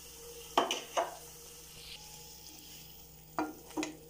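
Wooden spatula stirring and scraping masala paste and onions around a nonstick frying pan, with a soft frying sizzle underneath. Four sharp knocks of the spatula against the pan, two near the start and two near the end.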